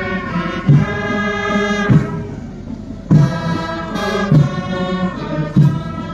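Ceremonial band music: held chords over a steady bass drum beat, struck about once every second and a bit.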